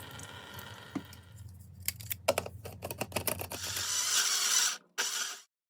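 Clicks of a blender jar and lid being fitted, then the blender motor running in two short pulses, grinding onion, garlic and ginger with a little water into a paste.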